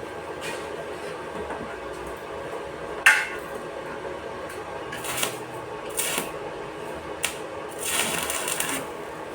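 Scattered knocks and clinks of hard parts being handled on a workbench, over a steady background hum; the loudest knock comes about three seconds in, and a short rattle near the end.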